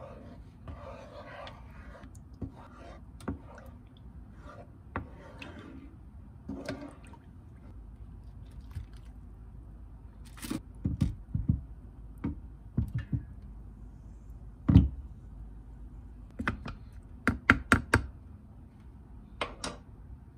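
Cooking at a small pot: a wooden spoon stirring thin sauce, then a run of sharp knocks and clatters against the pot, loudest about three-quarters of the way through, as fish cakes and rice cakes go in.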